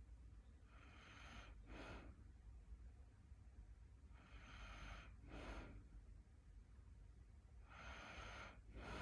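Faint snoring of a sleeper: three slow breaths about three and a half seconds apart, each a longer hiss followed by a shorter, lower one. The owner wonders whether this snoring is a sign of sleep apnea.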